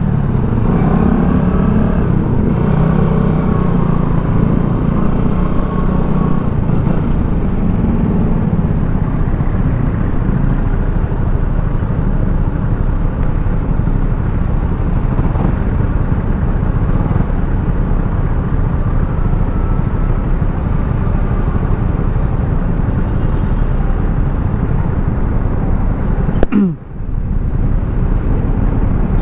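Motorcycle on the move in traffic: engine running under a steady rush of wind and road noise, with a brief dip in the sound near the end.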